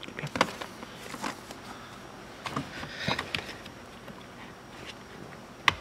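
Hands working the plastic wiring-harness connector and its rubber boot in an Audi A4 B7's rear door jamb, freeing the plug: soft rustling and scattered small clicks, with one sharp click near the end.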